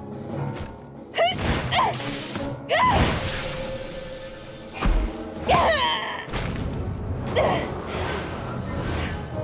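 Action music from an animated fight scene, with sound effects of whooshes and thuds, and several short effort cries.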